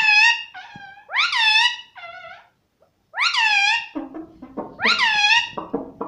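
Indian ring-necked parakeet giving a series of loud, high calls, about one a second, each rising sharply then falling.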